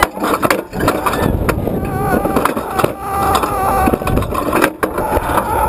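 Wind rushing over a GoPro's microphone as a funfair slingshot ball ride swings, with two riders laughing and screaming in wavering high voices.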